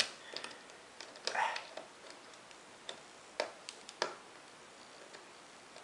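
Irregular light clicks and taps of fingers working display wiring into the plastic screen frame of a Dell Inspiron 1545 laptop, the two sharpest about three and a half and four seconds in.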